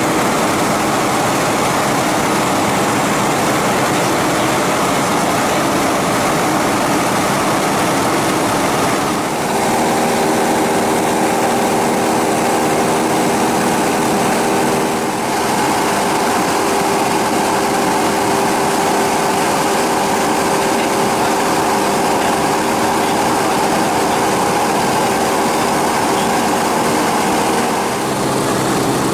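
Light aircraft's piston engine and propeller droning steadily, heard from inside the cabin, with a constant hum and a few brief dips in level.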